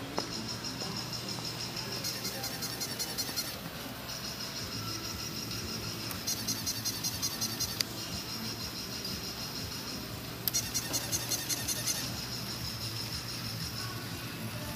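Battery-operated hopping toy bunny's mechanism running: a steady high whine with a low hum under it, broken three times by about a second and a half of fast, even ticking, roughly seven ticks a second, as the toy hops. A single sharp click comes a little before the middle.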